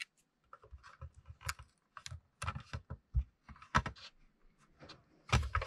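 Hands handling a hollow plastic toy tank on a tabletop: irregular light clicks and taps of the plastic, some with a dull knock, and a louder clatter near the end.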